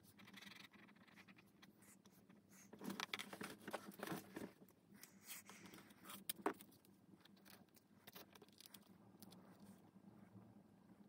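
Faint handling of drawing materials on a desk. There is a burst of rustling and scraping about three to four and a half seconds in, and a single sharp click at about six and a half seconds.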